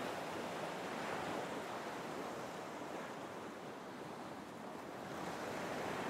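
Baltic Sea waves breaking in the shallows, a steady wash of surf that swells louder about a second in and again near the end.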